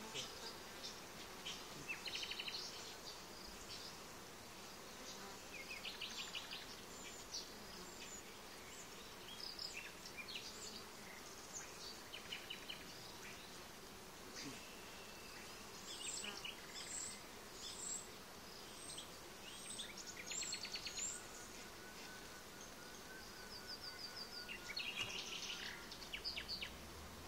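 Honeybees humming over an open hive, with birds chirping and trilling throughout; past the middle one bird repeats a high note about once a second, six times.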